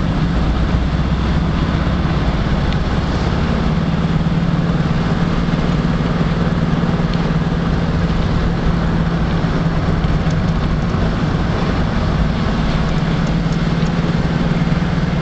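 Car engine and tyres on asphalt heard from inside the moving car's cabin: a steady hum and rumble that holds an even level.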